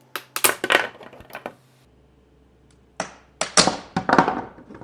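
Large PLA print being pried off a glass 3D-printer bed coated with Super 77 spray adhesive: two bouts of sharp crackling clicks as the plastic snaps loose and knocks against the glass.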